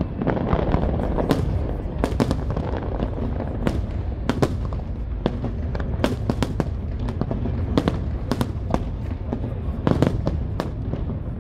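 Aerial fireworks display: a dense, irregular string of sharp cracks and bangs over a continuous low rumble of bursting shells.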